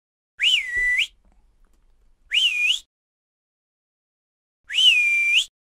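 A person whistling to call a dog: three short whistles about two seconds apart. Each one slides quickly up to a high note, dips to a steady held note, then flicks up again at the end.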